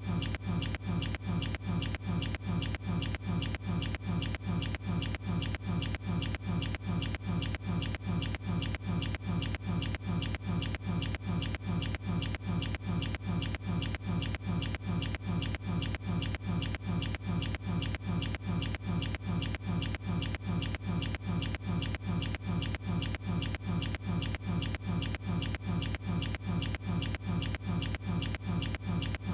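One person's sneeze, the same recording looped over and over without a break, repeating rapidly several times a second at an unchanging level.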